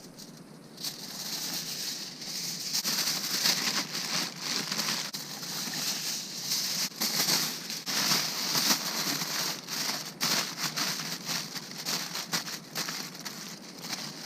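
Aluminium foil crinkling and crumpling in irregular crackles as it is folded around a mud crab to make a cooking pocket.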